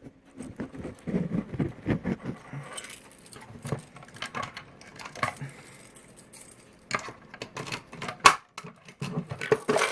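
Keys jangling and plastic clicks and rattles as a Notifier BG10L key-lock pull station is handled, unlocked and reset, with one sharp click about eight seconds in.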